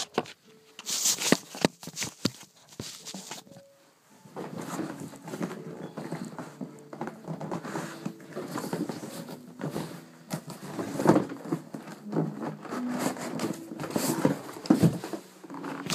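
Cardboard box and packaging being handled and opened: a few sharp knocks in the first couple of seconds, then steady rustling, scraping and crinkling with scattered knocks from about four seconds in.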